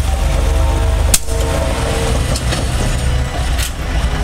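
Small diesel switcher locomotive, U.S. Army #7751, running with a low pulsing rumble as it uncouples from a caboose and pulls away. A sharp metallic clank about a second in, then a few lighter clicks.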